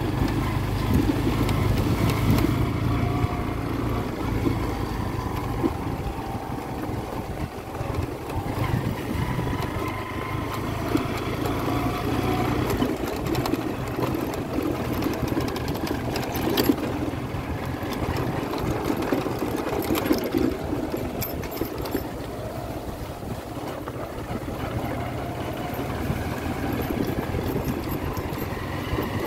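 Motorcycle engine running steadily while riding, with a few short knocks from the bumpy dirt track.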